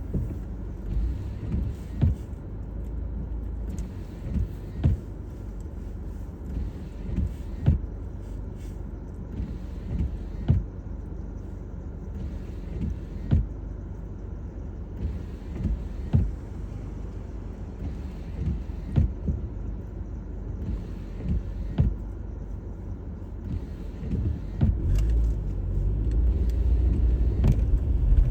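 Car driving on a snowy, icy road, heard from inside the cabin: a steady low rumble of engine and tyres, with dull thumps every second or two. The rumble grows louder near the end.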